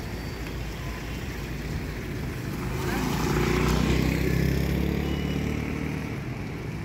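Mahindra Scorpio SUV driving past close by, its engine and tyre noise growing louder to a peak about three to four seconds in and then fading as it moves away.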